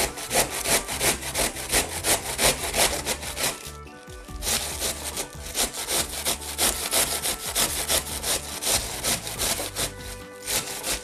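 Cabbage being grated on a metal box grater resting on a wooden board: quick, even rasping strokes, about four a second, with a brief pause about four seconds in and another near the end.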